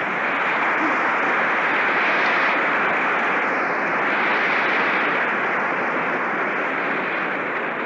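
Large audience laughing and applauding in response to a joke. The sound is a steady, dense wash that swells at the start and fades near the end, muffled by an old recording with little treble.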